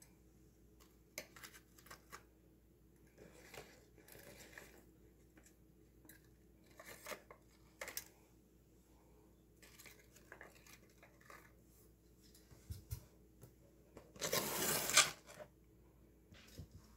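Scattered small paper rustles and light clicks, then about a second of loud paper crinkling near the end as a paper bag used as a bin is picked up.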